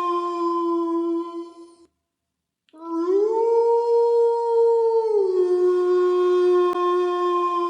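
Wolf howling: a long, steady howl ends about two seconds in, and after a short silence a new howl rises in pitch, holds, then drops back to a lower note that is held on. A brief click near the end.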